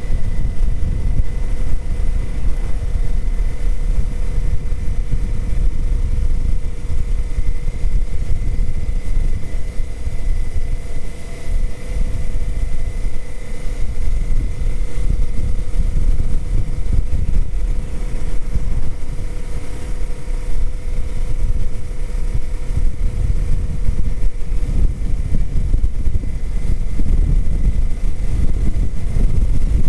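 Kawasaki Z400 parallel-twin motorcycle cruising at a steady pace, with wind rumbling on the microphone and a faint steady whine of unchanging pitch underneath.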